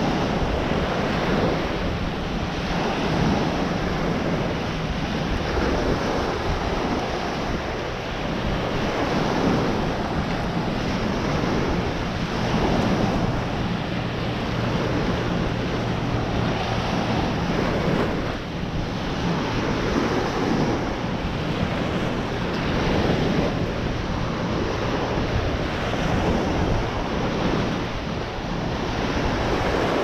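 Small waves washing onto a sandy beach, mixed with steady wind noise on the microphone.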